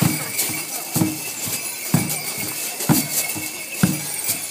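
A dance drum beaten in a steady slow rhythm, about one deep beat a second, with light clicks between the beats.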